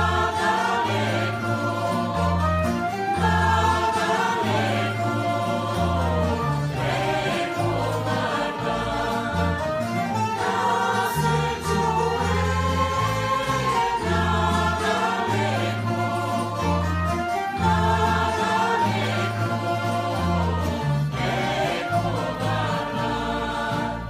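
Mixed choir of men and women singing a Bulgarian folk song together, accompanied by plucked tamburas.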